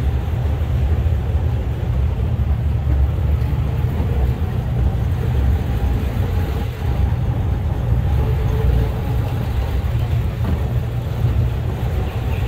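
Steady engine and road rumble heard from inside a jeep driving slowly along a village street.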